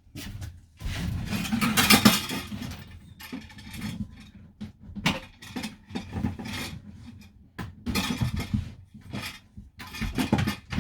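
Irregular clinking, rattling and scraping as hard parts are pulled loose and handled, with several sharp knocks, the loudest about two seconds in.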